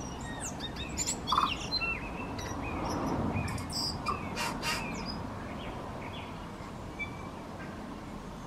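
Tūī singing: a quick mix of clicks, short gliding whistles and high notes, busiest in the first half and thinning out towards the end.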